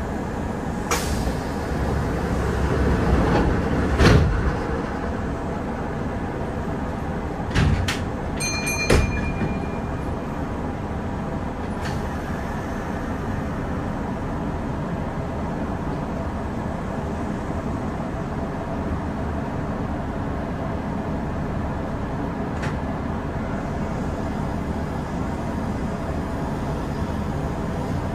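Kintetsu 8000-series electric train running, a steady rumble of wheels and motors. In the first ten seconds a few sharp knocks come through, the loudest about four seconds in, and a brief thin ringing follows near the ninth second. After that the running noise carries on evenly.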